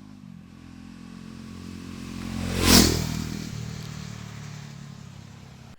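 Motorcycle riding past with its engine running steadily, as a rush of noise swells to a peak just under three seconds in and fades away.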